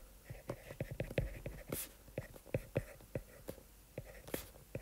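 Stylus tip tapping and scraping on a tablet screen during handwriting: a quick, irregular run of small ticks, several a second.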